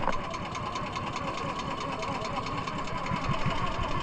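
Small engine of a motorized outrigger fishing boat running steadily, a fast even beat with a steady hum.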